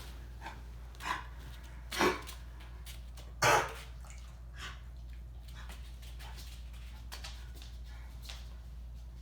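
Irish wolfhound coughing in three short hacks, each louder than the last, the loudest about three and a half seconds in, followed by a few faint sounds. The owner takes the cough for a mild case of kennel cough.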